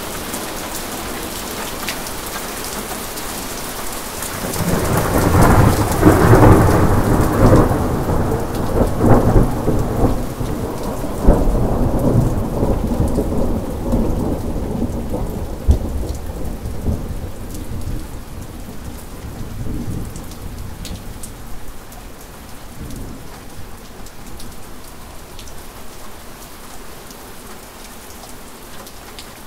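Steady rain with a long roll of thunder that builds about four seconds in. The thunder rumbles loudest for around ten seconds, with a few sharper cracks, then slowly fades away under the rain.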